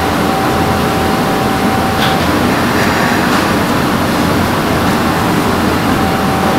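Steady noise of a commercial kitchen's ventilation and gas wok burners, with a faint steady whine that drops out partway through and returns near the end. A faint tap, likely the knife on the cutting board, comes about two seconds in.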